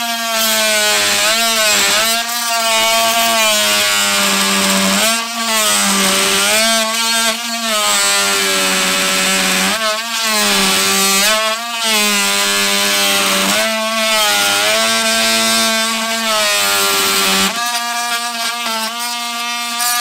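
TackLife 12-volt cordless oscillating multi-tool sawing lengthwise through a thick wooden block: a steady buzzing whine whose pitch sags briefly every second or two as the blade bogs down in the wood, stopping right at the end.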